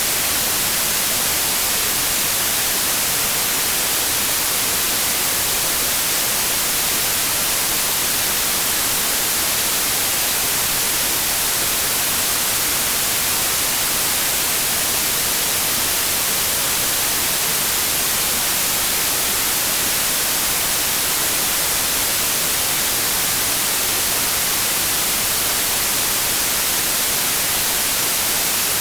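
Steady synthesized white noise: an even, unbroken hiss, strongest in the high end, with no changes or events.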